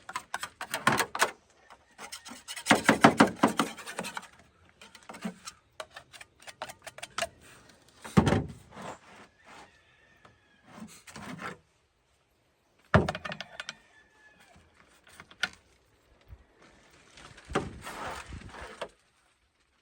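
Rubbing and scrubbing strokes with clicks and sharp knocks as plastic and metal chainsaw parts are cleaned and handled, in irregular spells with short pauses.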